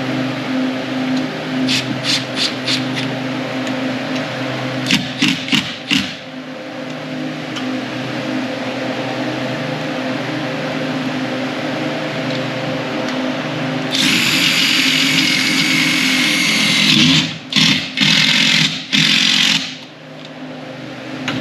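Power drill driving screws into a door-curtain mounting plate: a few short clicks early, then the drill runs in one long burst of about five seconds, broken by brief stops near the end, over a steady low hum.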